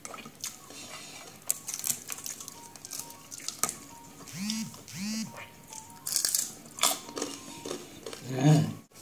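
Close-miked eating sounds: irregular wet clicks, smacks and crunches of food being chewed. A short low voiced sound comes near the end.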